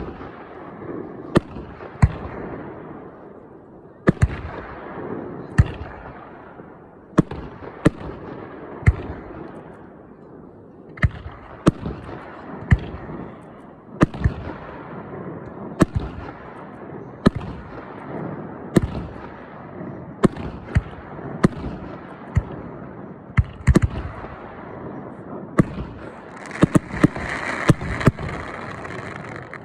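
Aerial fireworks going off: sharp bangs every second or two, each trailing off in a rumbling echo, with a denser, hissing crackle near the end.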